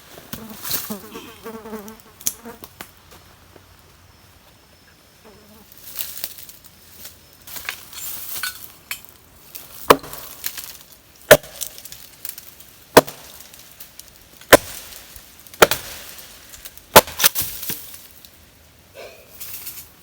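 An insect buzzing close by for the first few seconds, then six sharp knocks about a second and a half apart in the second half.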